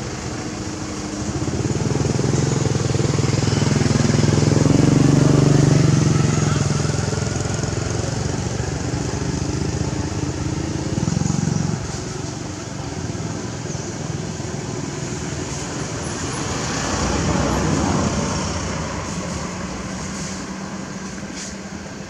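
Engine of a motor vehicle passing by, swelling to a peak a few seconds in and fading away, with a second, smaller swell of engine noise later on over a steady background hiss.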